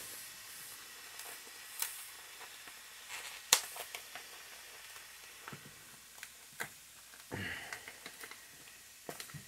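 Chopped bell peppers and green onions sizzling faintly in a hot cast-iron skillet, with raw ground beef just added on top, and scattered crackling pops. A short, soft rustle comes near the end.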